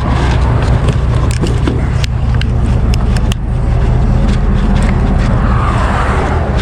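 Steady low vehicle rumble with a constant hum, with interstate traffic swelling past near the end and scattered small clicks.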